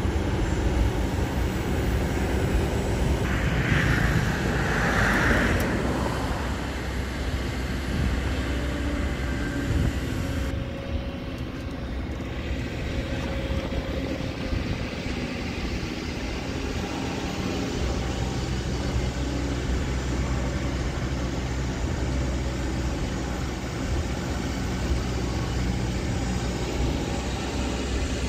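Kobelco SK200 hydraulic excavator's diesel engine running steadily under working load as it digs and swings. A brief higher-pitched whine rises over it about four to six seconds in.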